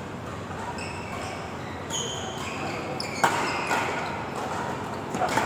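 Badminton doubles rally: sharp racket strikes on the shuttlecock, the first about three seconds in, with short high squeaks of court shoes on the synthetic court floor.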